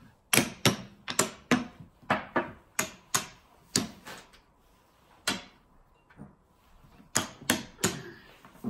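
Round wooden xiangqi pieces clacking as they are swept up and stacked by hand. A quick run of sharp clicks comes first, then a single click about five seconds in, then another run near the end.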